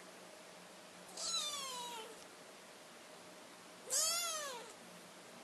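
Young British Shorthair kittens mewing: two drawn-out mews, the first falling in pitch about a second in, the second rising then falling about four seconds in.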